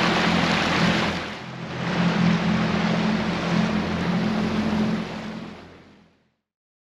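A boat's motor running under way, a steady low drone under rushing water and wind noise on the microphone, dipping briefly about a second and a half in and fading out about five seconds in.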